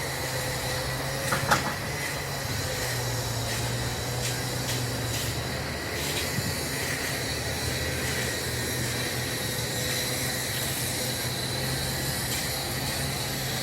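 A steady low mechanical hum with faint, constant whining tones above it, and a single short click about one and a half seconds in.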